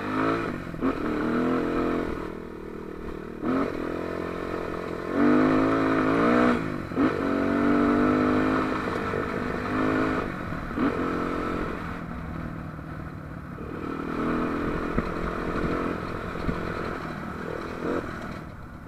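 AJP dirt bike's engine pulling along a rough dirt track, its pitch rising and dropping back several times as the throttle is opened and eased off. A few short knocks and rattles come from the bike jolting over bumps.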